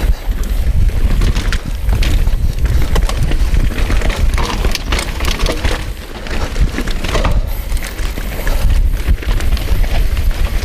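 Mountain bike riding fast down a dirt singletrack: tyres rolling over dirt and the bike rattling with many short clicks and knocks over bumps, over a heavy low rumble of wind on the microphone.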